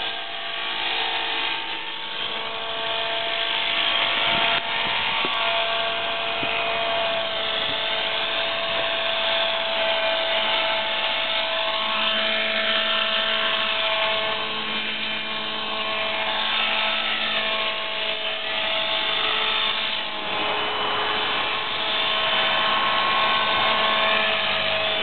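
Align T-Rex 450 SE electric RC helicopter in flight: the brushless motor and gear train whine steadily with the rotor's buzz, the pitch shifting up and down as it moves about.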